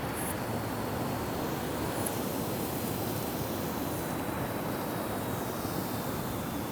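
Steady outdoor background noise, a hiss over a low rumble, with a faint high tone slowly falling in pitch.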